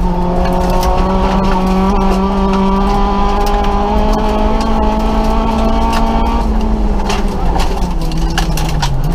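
Nissan Micra rally car's engine, heard from inside the cabin, held at high revs with its pitch creeping up slowly, then the revs drop about seven seconds in and dip again just before picking back up near the end. Stones and gravel tick and clatter against the underside throughout.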